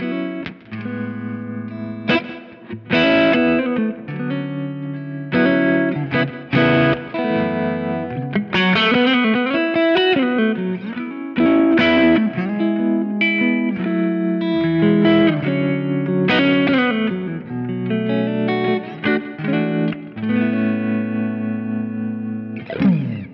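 Solo electric guitar, a Telecaster-style guitar played through a JK Amplifiers Oxygen 1 valve preamp and a Kemper, playing a mix of chords and single-note lines with notes left ringing.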